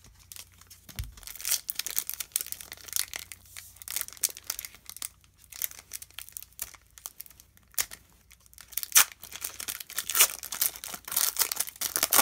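Foil trading-card pack crinkling and being torn open by hand: an irregular run of crackles and rips, loudest in the last few seconds.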